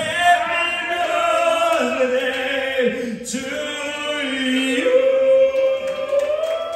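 Men singing into microphones over a sound system, holding long drawn-out notes.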